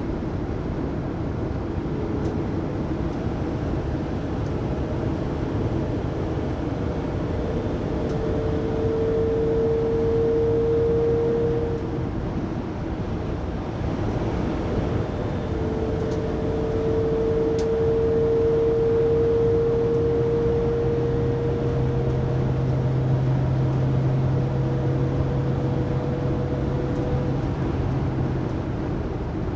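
Loud whine inside the cabin of a 2019 Mercedes-Benz Sprinter 3500XD van at 80-90 km/h, over steady road and engine noise. The whine sounds from about 8 to 12 seconds in, fades, and returns about 15 seconds in until near the end, its pitch creeping slowly up. It persists after the differential and drive shaft were replaced.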